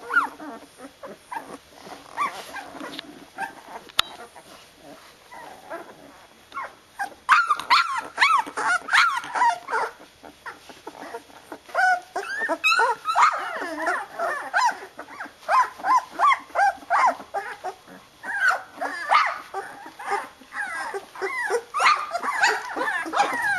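A litter of 13-day-old flat-coated retriever puppies whining and squeaking, many short cries overlapping one another. They come in bursts with quieter gaps between.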